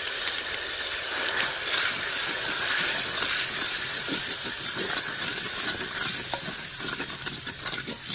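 Ground red chilli, turmeric and salt frying in hot oil with ginger paste in a clay cooking pot, stirred with a wooden spoon: a steady sizzling hiss with faint scrapes and taps of the spoon, easing off near the end.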